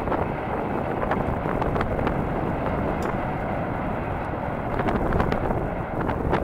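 Wind buffeting the microphone in a steady rumble, with scattered faint ticks.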